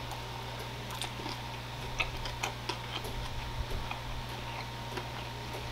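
Chewing a fish sandwich close to the microphone: scattered, irregular wet mouth clicks and smacks, over a steady low hum.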